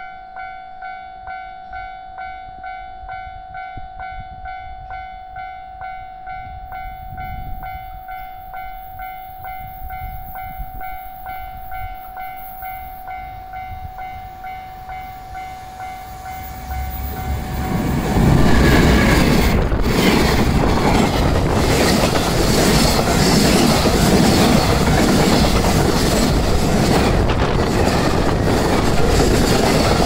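Level-crossing warning bell ringing in a steady repeating pattern as a train approaches. From about 18 seconds in, a container freight train with its locomotive passes close by, and loud wheel-on-rail noise takes over.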